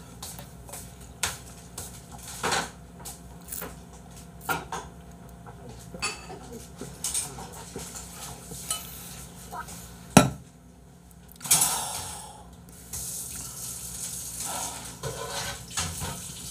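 Clinks and knocks of dishes and cutlery in scattered light clicks, with a sharper knock about ten seconds in. Stretches of hissing noise follow in the second half.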